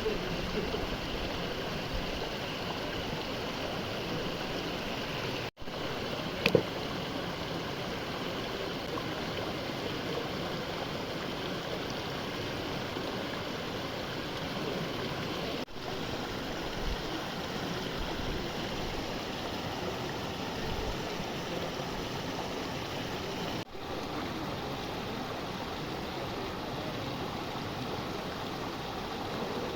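Steady rush of flowing water, with one sharp click about six and a half seconds in; the sound drops out for an instant three times.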